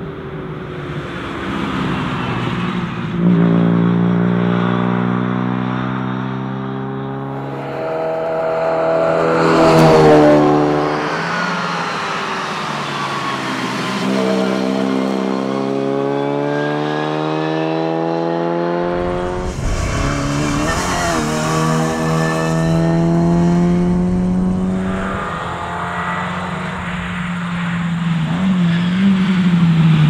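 Austin A30's small four-cylinder engine revving hard as the car accelerates along the road. The note climbs and then drops back several times. About ten seconds in, the car passes close and its pitch falls away steeply.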